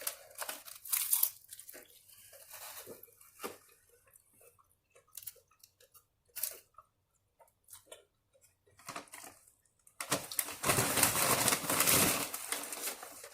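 Chewing and crunching of taco close to the microphone, in scattered short crackles. About ten seconds in, a dense, louder crunching or rustling noise runs for about three seconds.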